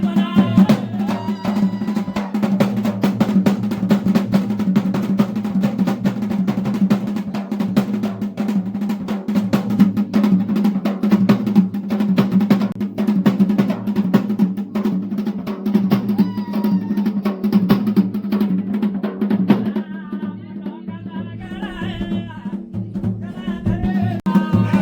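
Dhol and damau drums beating fast and without a break in the mandan, the Garhwali ritual drumming for the deities' dance, over a steady low drone. Voices rise briefly near the end.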